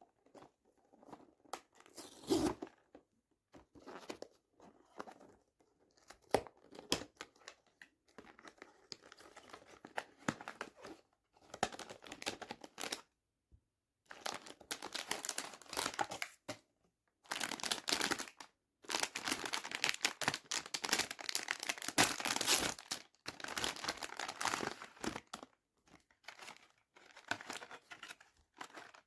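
Blind-box figure packaging being torn open and crinkled by hand, in irregular rustling bursts, busiest and loudest in the second half.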